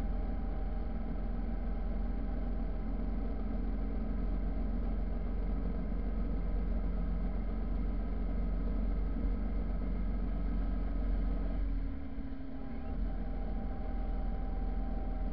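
Motorcycle engine running steadily at road speed under wind and road noise. About twelve seconds in the engine note briefly drops away, then picks up again.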